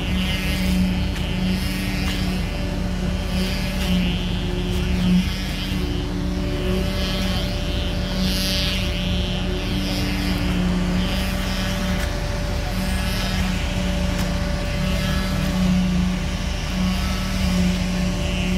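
Engine-driven machinery running steadily during a concrete slab pour, a continuous hum with a strong low tone and no clear change.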